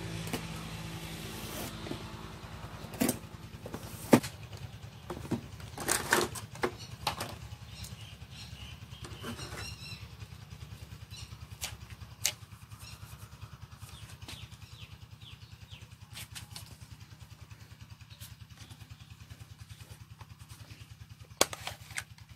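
Hands unpacking a cardboard box and its plastic wrapping: scattered knocks, taps and crinkles, the sharpest about four seconds in and another pair near the end, over a steady low hum.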